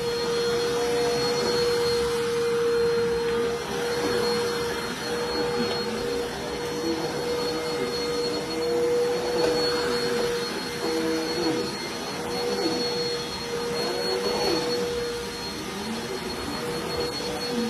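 Dirt Devil Vigor cyclonic pet vacuum cleaner running steadily: a constant motor whine, with a lower hum that wavers up and down in pitch.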